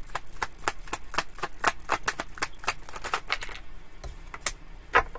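A deck of tarot cards being shuffled by hand: a quick run of card clicks at about six a second, thinning out after about three seconds, with a couple of louder single clicks near the end.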